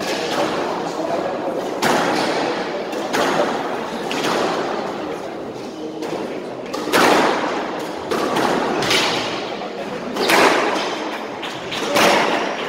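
Squash ball struck by rackets and hitting the court walls: sharp cracks a second or two apart, each ringing on in the echoing court.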